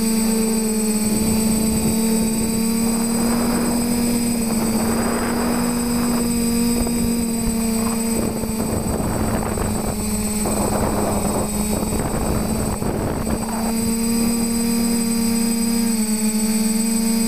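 TBS Discovery quadcopter's brushless motors and propellers running with a steady whining hum, recorded by the onboard camera. Rushing wind noise comes and goes through the middle, and the motor pitch wavers briefly near the end.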